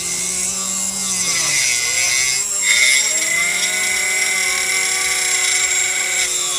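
Small motor driving the spinning cutting disc of a homemade miniature tractor tree cutter, a steady whine with a hiss. Its pitch drops about a second and a half in, then climbs back and holds.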